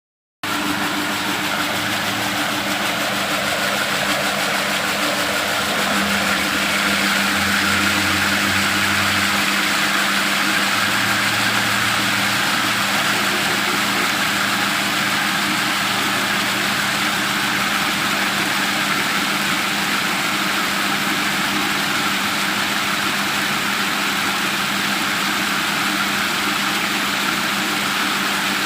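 A motor running steadily: a constant mechanical hum with a hissing whir over it, its hum changing slightly in pitch about six seconds in.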